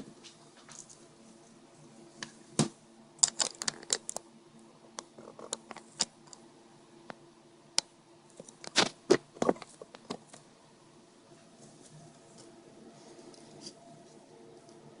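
Hands working small plastic parts and ribbon-cable connectors inside an opened Garmin GPS: scattered sharp clicks and taps, with two quick flurries, the second a little over halfway through, then only light handling.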